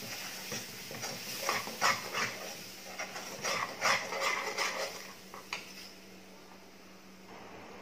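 Spatula stirring thick, cooking mango pulp in a coated pan: wet squelches and scrapes in quick clusters, stopping about two-thirds of the way through.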